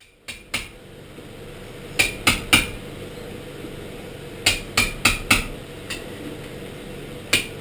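Hammer striking metal at a bench, in quick groups of two to four blows about a third of a second apart, each blow with a short bright metallic ring.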